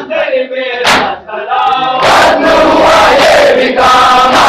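Men chanting a noha together, with hand strikes on the chest (matam) in time, at first about one strike a second. About two seconds in, the chanting becomes louder and denser.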